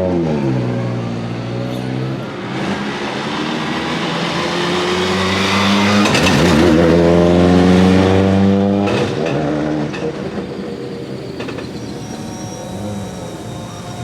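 Ford Focus WRC rally car's turbocharged 2.0-litre four-cylinder engine. It revs and accelerates: the pitch settles early, then dips and climbs to its loudest, highest note in the middle. A little after the middle it falls back to lower, uneven running, with a few sharp pops.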